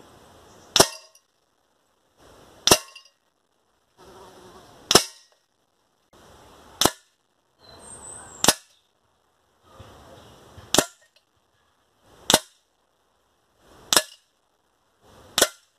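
Air rifle shots, each pellet striking a metal pellet catcher lined with carpet tile to deaden the impact: nine sharp cracks, about two seconds apart.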